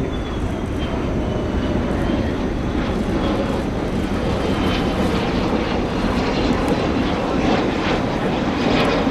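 Jet engines of the Shuttle Carrier Aircraft, a modified Boeing 747 with four turbofans, running at takeoff power as it climbs away. The sound is a steady rumble with a faint high whine and grows slightly louder toward the end.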